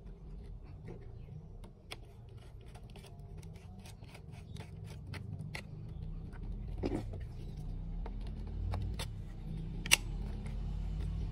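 Light plastic clicks and rattles from a toy M16-style rifle being handled and turned over, with a sharper click near the end.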